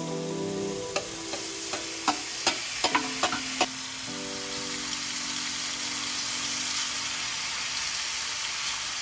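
Cooked penne knocked out of a metal strainer pot into a frying pan of mushrooms with a wooden spatula: a quick run of clicks and knocks. About four seconds in this gives way to a steady sizzle from the hot pan.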